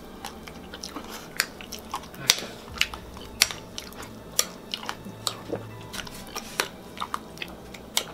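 A person eating soft oatmeal fast from a bowl with a spoon: chewing and wet mouth sounds, broken by sharp, irregular clicks of the spoon against the bowl, about one or two a second.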